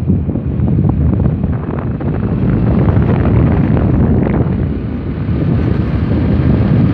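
Wind buffeting the microphone of a moving vehicle, a steady low rumble mixed with the vehicle's road noise.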